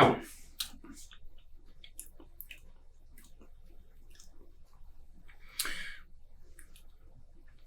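Faint mouth clicks and lip smacks as someone tastes beer, with a short breathy sound about five and a half seconds in.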